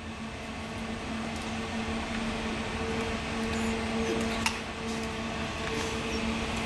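Homemade humidifier running, its 6-inch fan and water pump giving a steady mechanical hum with a low tone. A single sharp click about four and a half seconds in.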